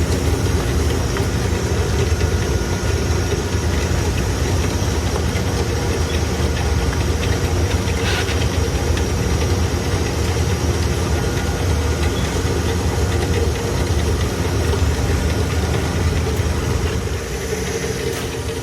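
Steady, loud machinery drone with a low rumble and a few constant hum tones above it, easing off slightly near the end.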